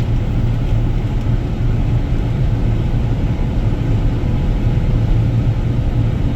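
Combine harvester running: a steady low engine drone with an even, unbroken level.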